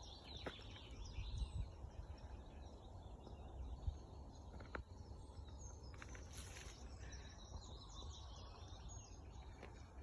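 Faint birdsong, a few short chirps in the second half, over a steady low outdoor rumble, with an occasional soft click.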